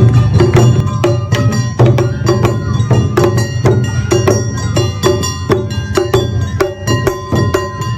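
Awa Odori festival music played live: a strong drum beat with quick, clanging strikes of a hand gong and ringing tones over it.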